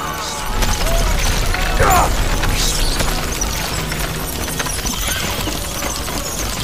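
Film sound effects: a deep rumble that comes in about half a second in, under a dense clatter with a few short high squeals.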